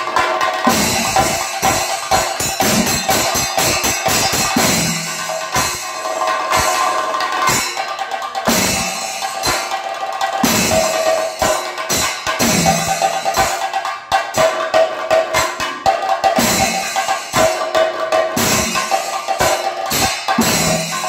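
Double thayambaka: several chenda drums beaten with sticks in fast, dense rolls, with deeper strokes recurring about every two seconds and a steady ringing tone running underneath.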